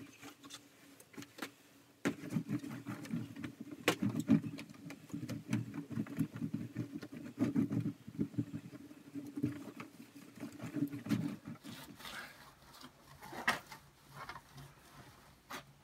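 A cloth rag scrubbed quickly back and forth over the face of a dirty sign, a rapid run of rubbing strokes from about two seconds in until about eleven seconds, then fainter wiping with a few sharper scuffs.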